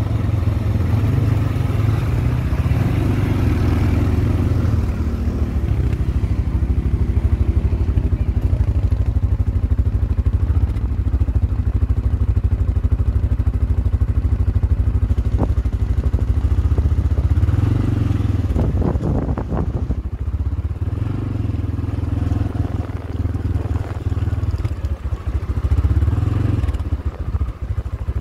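CFMOTO CForce ATV engine running under way, its low pulsing rising and falling with the throttle, with a few clattering knocks about two-thirds of the way through.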